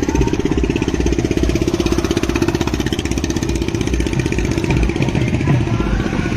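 A small engine running steadily close by, with a rapid, even chugging beat.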